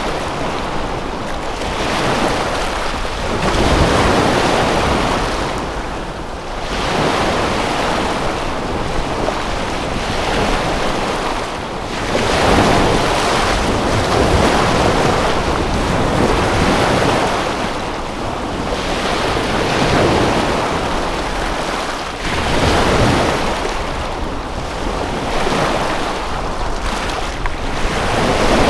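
Waves washing in on a lakeshore, a rushing noise that swells and falls back every few seconds, with wind.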